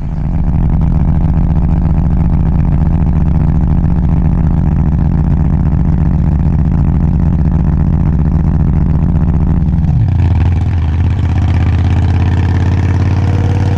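DIGGIT SCL850 stand-behind mini skid steer's engine running at high throttle, then throttled back about ten seconds in, its pitch falling to a steady lower idle.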